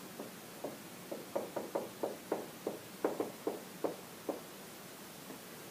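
Dry-erase marker writing on a whiteboard: a quick run of short, separate strokes, about three or four a second, that stops a little over four seconds in.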